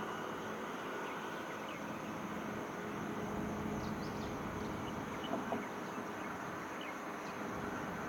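Distant TRA E1000 push-pull electric train approaching: a faint, steady rumble with no rise in loudness. A few faint, short bird chirps come over it.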